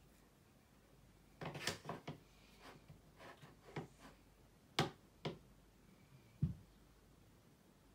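Small makeup items clicking and rattling as hands sort through a cosmetic bag: a cluster of light clicks, then two sharper clicks and a dull knock near the end.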